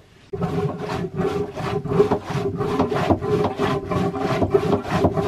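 Hand-pumped marine toilet being pumped quickly: a rhythmic rasping stroke about three times a second, starting abruptly just after the start. The toilet is blocked, so the pump is working against the blockage.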